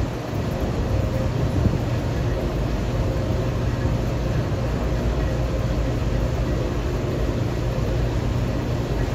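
Bowling alley background noise: a steady low rumble, with no distinct pin strikes.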